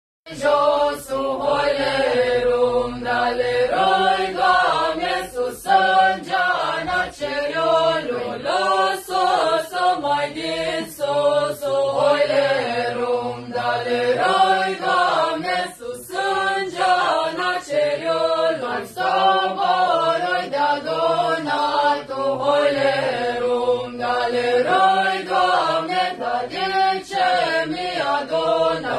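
A mixed group of young men and women singing a traditional Romanian colindă (Christmas carol) together, phrase after phrase.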